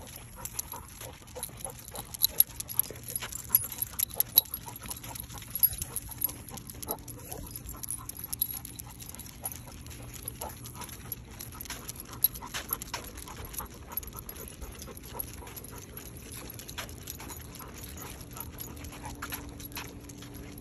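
Two basset hounds walking on leashes on a concrete sidewalk: an irregular patter of small clicks and taps from the dogs and their leash and harness gear, loudest about two to four seconds in, over a steady low hum.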